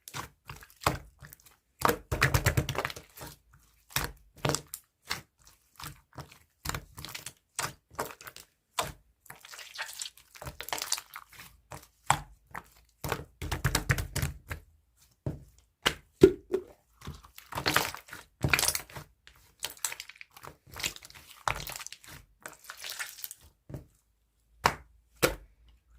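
Clear jelly-textured slime being squeezed, pressed and stretched by hand, giving off a quick irregular stream of sticky clicks, pops and crackles.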